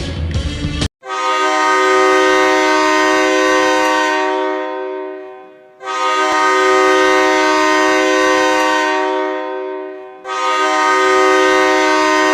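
Ice hockey arena goal horn, a multi-tone air horn chord, sounding three long blasts, each fading away before the next. It comes in about a second in, after a rock song cuts off sharply.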